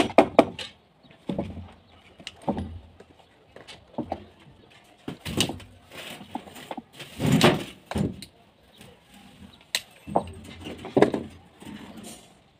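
Hand tools working the wooden formwork off a concrete foundation footing: a quick run of sharp clicks at the start, then irregular knocks and scrapes against the form boards.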